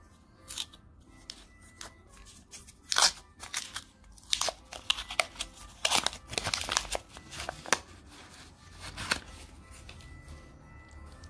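Paper wrapper of a roll of 2-euro coins being torn and crinkled open by hand, in irregular crackling bursts that stop about nine seconds in.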